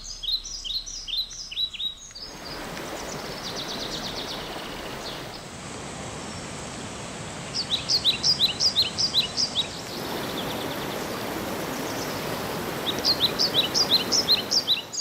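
A small songbird singing three bursts of quick, repeated down-slurred high notes, over the steady rush of stream water that comes in abruptly about two seconds in.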